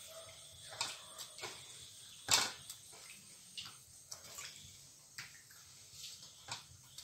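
Hand rubbing and wiping the inside of a wet metal wok, making scattered scrapes and light knocks on the metal, with one louder knock about two seconds in.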